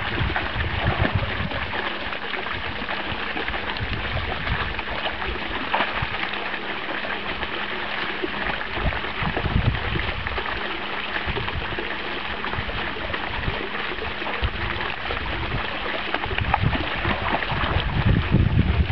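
Small pond fountain jet splashing steadily into a garden pond, with a puppy now and then wading and splashing in the shallows.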